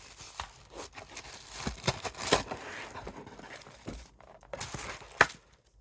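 Paper and packaging rustling and crinkling as items are handled, with a few sharp taps and clicks, the loudest about five seconds in.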